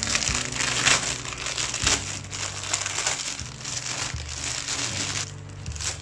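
Clear plastic packaging bag crinkling and rustling as hands open it and pull a plastic cable management tray out, loudest about a second in and easing off near the end.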